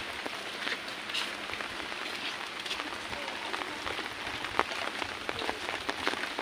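Heavy rain falling: a steady hiss dotted with many sharp, close drop ticks.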